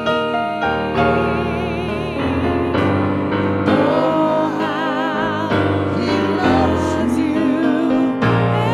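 Slow gospel song: a solo voice singing with a wide vibrato over sustained organ and keyboard chords, the voice strongest from about halfway through.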